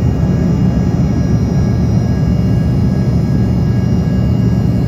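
Airliner engine noise heard inside the passenger cabin during the climb: a steady low rumble with a faint even whine above it, loud because the seat is right in front of the engines.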